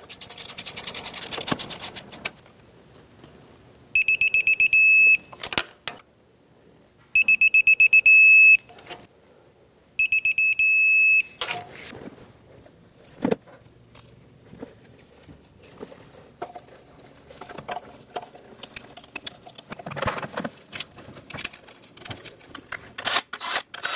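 A digital torque wrench beeping three times, each a fast-pulsing high-pitched beep of about a second, as the spark plugs reach their set torque of 18 foot-pounds. Ratchet clicks and tool knocks come before and after the beeps.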